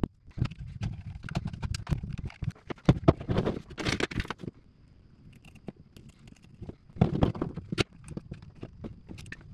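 Small power inverter being handled on a workbench: its black plastic end cover clicking and knocking as it is worked, with parts scraping on the table. A dense run of clicks and knocks is followed by a quieter spell, then a few more knocks.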